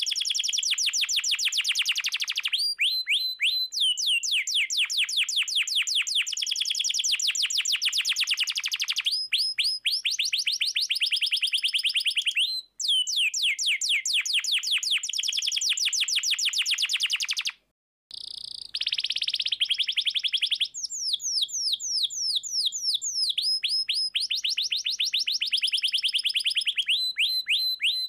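Domestic canary singing a long, fast song of rapid trills, high notes repeated many times a second, with a short break about two-thirds of the way through.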